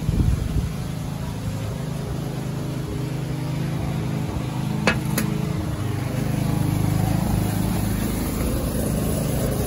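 Steady low hum of a running motor, swelling slightly past the middle, with two light clicks about five seconds in.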